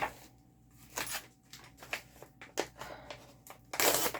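Handling noise from packaging and small craft items: a few short clicks and taps, then a louder rustle near the end.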